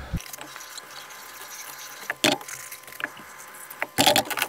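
Dishes being handled and put down at a kitchen sink: a few scattered clinks and knocks, with a louder clatter about four seconds in.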